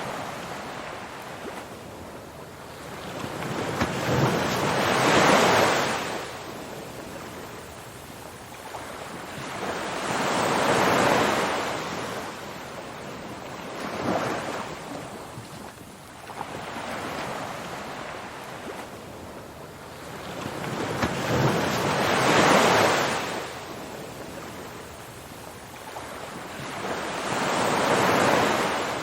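Ocean waves washing onto a shore, each surge rising and falling away about every five to six seconds.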